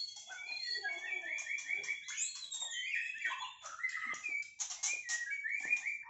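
White-rumped shamas singing in their cages: varied whistled phrases with rapid runs of repeated notes and sharp clicking notes, several birds' songs overlapping.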